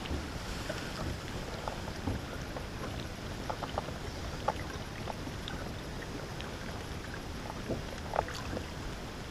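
Lake water lapping against the side of a boat, with small splashes and drips from hands and a musky held in the water to revive it.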